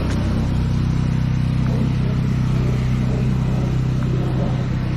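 Pressure-washer engine running at a steady speed.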